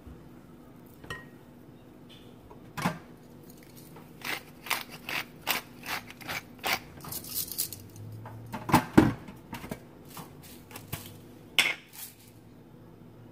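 Clinks and knocks of utensils against a glass mixing bowl, with a run of quick, light clicks in the middle as black pepper is added over the potato salad; the loudest is a pair of knocks about nine seconds in.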